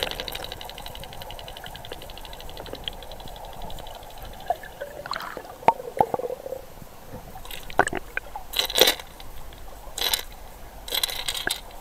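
Muffled water sound picked up by a submerged camera in murky river water. A fast, even ticking runs through the first few seconds, followed by scattered knocks and short sloshing bursts.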